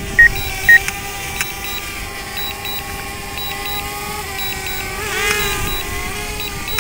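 DJI Mavic Air quadcopter hovering close by, its propellers giving a steady whine that briefly rises and falls in pitch about five seconds in. Two short loud beeps sound near the start.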